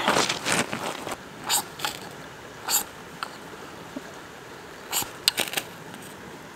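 Knife scraped hard down a brand-new ferrocerium rod, a string of quick sharp rasps at uneven intervals, throwing sparks into a dry-grass tinder nest to light it.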